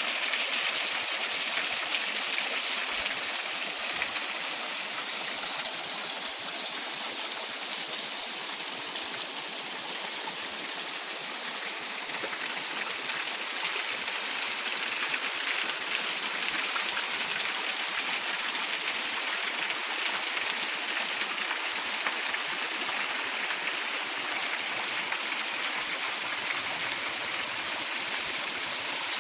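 Waterfall rushing steadily: a continuous hiss of falling and splashing water, mostly high and without much low rumble.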